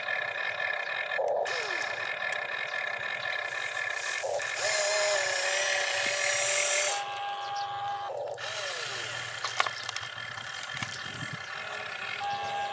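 RC excavator's electric motors whining steadily as the boom, arm and bucket move, the pitch and tone shifting each time a new motion starts, with a few short falling glides. One sharp click about ten seconds in.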